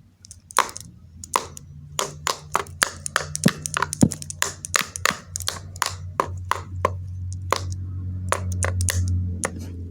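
Irregular sharp taps and clicks, a few a second, over a low steady hum that grows louder in the second half.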